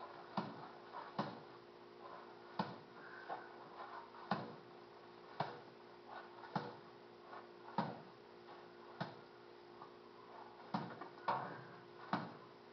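Sharp clicks or knocks about once a second, unevenly spaced, over a faint steady hum.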